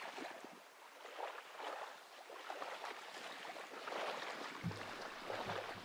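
Small lagoon waves lapping on a sandy, rubbly shore: a soft wash full of little splashes and crackles. Low music notes come in near the end.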